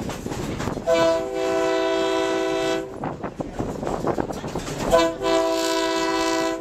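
Diesel locomotive's multi-chime air horn sounding two long blasts, each about two seconds of a steady chord, a few seconds apart: the two-long signal that the train is about to move off.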